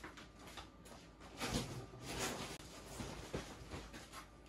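Faint off-camera rustling and handling noises, swelling twice in the first half, with a soft knock near the end.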